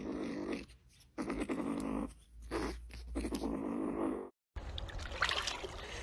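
Young kitten growling in long stretches while sucking milk from a bottle, three growls with short breaks between them, guarding its milk. About four and a half seconds in, water sloshing and splashing takes over as a dog wades in shallow water.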